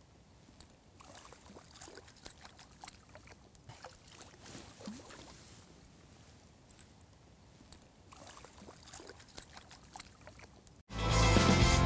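Faint small splashes and rustling as a fish is released by hand into the water at the bank. Near the end, loud title music cuts in suddenly.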